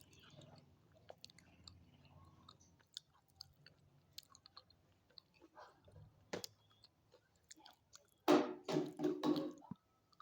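A person chewing hard chalky pieces close to the microphone, with faint gritty clicks, a single sharp crack about six seconds in, then four loud crunches in quick succession near the end.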